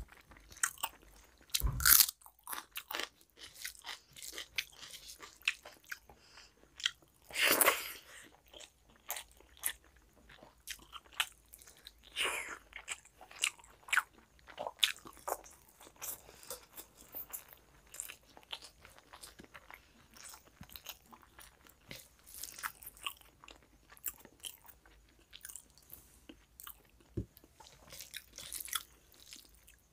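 Close-miked chewing and mouth sounds of someone eating mutton curry, egg and rice by hand: a steady run of quick wet smacks and clicks, with a few louder bites.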